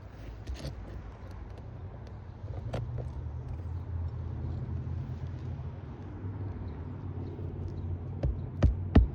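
A steady low outdoor rumble, then, starting near the end, a run of sharp knocks about three a second, the loudest sounds present.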